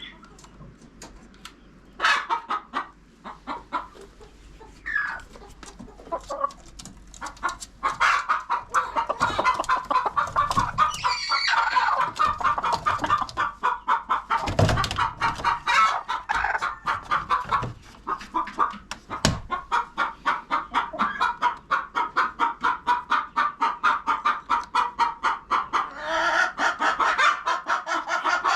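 Chickens clucking: a few scattered clucks and calls at first, then from several seconds in a fast, steady run of clucks at about four to five a second.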